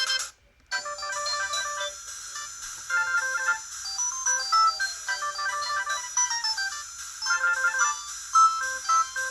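Sagem my150X mobile phone playing its ringtones: one ends just after the start, and after a short pause the next begins, a quick electronic melody over chords.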